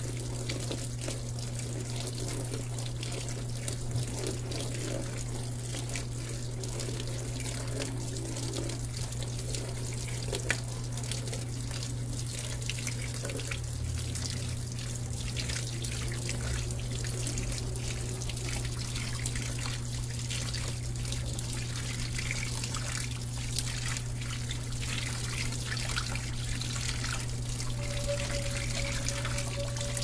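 Water running steadily into the drum of a Brastemp Vantage 8.5 kg high-efficiency top-load washer as it fills, over a steady low hum. A faint higher tone comes in near the end.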